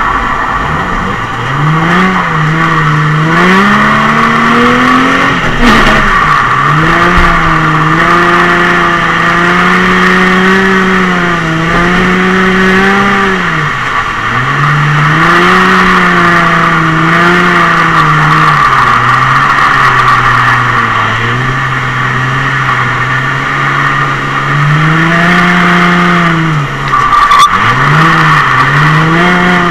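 Nissan 350Z's V6 engine heard from inside the cabin, revs rising and falling again and again through drifts, over a steady squeal of tyres sliding on the wet tarmac.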